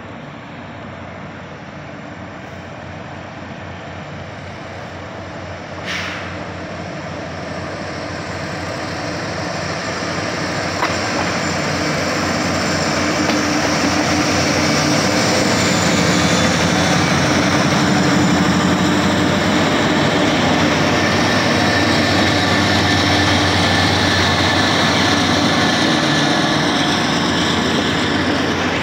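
Norfolk Southern freight train approaching and passing, its GE ET44AC diesel-electric lead locomotive growing steadily louder as it draws level, then loaded gondola cars rolling by with steady wheel-on-rail noise. A single sharp click sounds about six seconds in.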